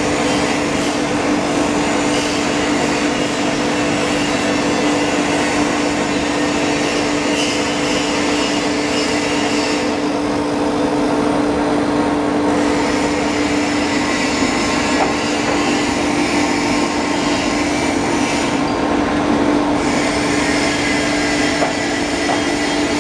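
Foam splitting machine running steadily with a constant hum as it slices a memory foam block into a 1 mm sheet.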